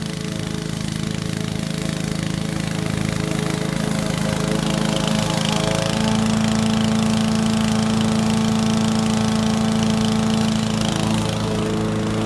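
Honda 21-inch self-propelled lawn mower's single-cylinder four-stroke engine running steadily under load, its blade cutting and mulching grass with the rear catcher opening plugged. It gets louder from about six seconds in as the mower comes close, easing off a little near the end.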